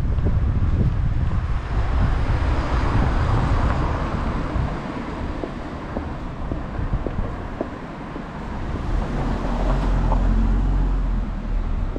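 Street traffic: cars passing, swelling twice as vehicles go by, with wind rumbling on the microphone.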